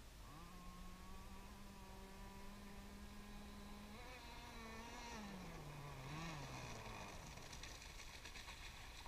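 Distant Zenoah two-stroke gas engine of an RC hydroplane running on a pond, a faint thin whine that holds steady, lifts in pitch about four seconds in, then drops and fades out around seven seconds in. A hiss of water spray follows near the end as the boat comes in.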